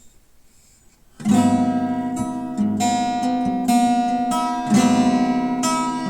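Acoustic guitar music: strummed chords that begin about a second in and are struck again roughly every second.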